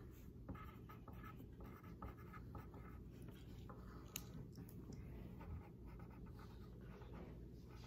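Faint scratching of a pen writing on paper, in many short strokes, over a steady low hum.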